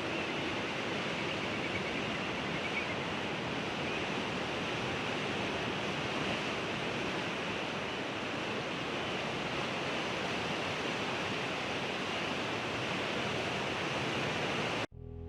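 Ocean surf: a steady, even rushing of waves with no music. It cuts off abruptly near the end.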